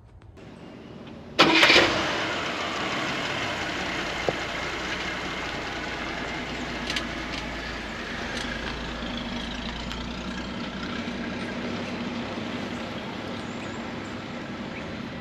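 1966 AMC Marlin's 232 straight-six with a two-barrel carburettor starting, with a sudden loud catch about a second and a half in, then running steadily.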